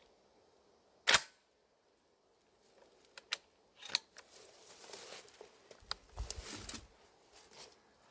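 A single shot from a 12-gauge Beretta A300 Outlander semi-automatic shotgun about a second in, short and sharp. It is followed a couple of seconds later by a series of metallic clicks and rustling as the gun is handled.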